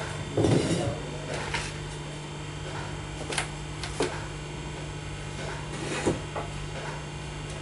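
Hollow clay bricks set down and shifted by hand onto a bamboo cover over a foam tray, giving five or six separate dull knocks and clinks. The loudest comes about half a second in.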